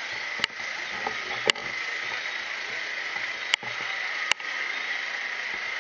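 Ambient noise of a large outdoor crowd, steady and without clear speech, with a constant high-pitched drone over it. Four sharp clicks cut through it, the second and third the loudest.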